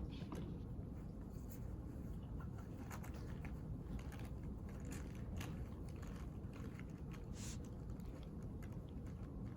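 Quiet library room ambience: a steady low background rumble with scattered small clicks, taps and crisp rustles, the sounds of people working at desks.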